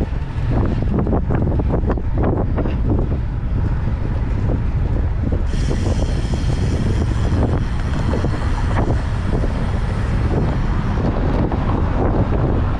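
Wind buffeting the microphone of a camera carried on a moving bicycle: a loud, steady rumble. A faint high whine joins it about halfway through and fades near the end.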